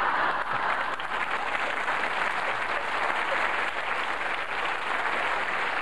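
Studio audience applauding: a dense, steady clatter of many hands clapping that eases slightly after the first second or two.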